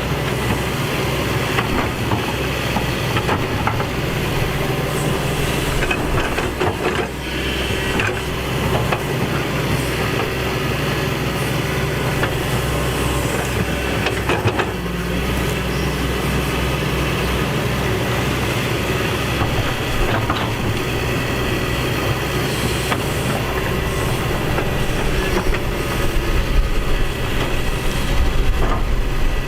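Excavator's diesel engine running steadily, with occasional metal clanks and rattles.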